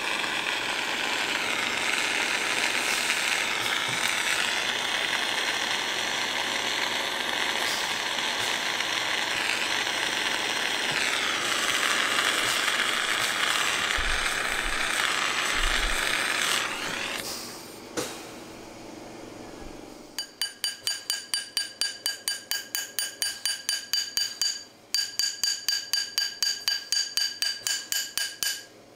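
Jeweller's gas torch flame rushing steadily as it heats an 18ct gold ring band, dying away about two-thirds of the way through. Then a hammer strikes the gold ring on a ring mandrel in a fast, even run of ringing metallic taps, about four a second, with a short break partway.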